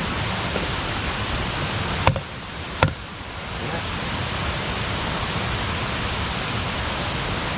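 Campfire of burning wood: a steady rushing hiss, with two sharp crackling pops a little over two and almost three seconds in.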